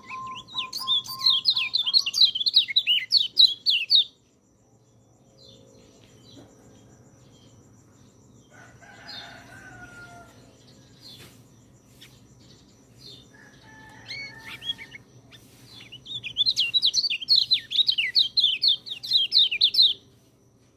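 White-eye (pleci) singing two fast, high warbling phrases, each about four seconds long, one at the start and one near the end. A rooster crows faintly in between.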